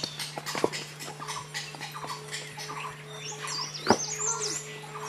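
Tibetan singing bowl, held on the palm and played with its wooden mallet, ringing with one steady tone. A louder strike of the mallet on the bowl comes a little before four seconds in.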